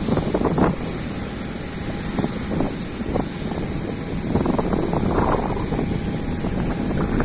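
Strong gusty wind buffeting the microphone in irregular surges, with a faint steady hum underneath.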